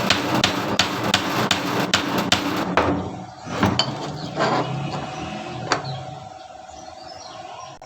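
Hammer blows struck in a fast, even run of about three to four a second, stopping about three seconds in, then a few single strikes further apart.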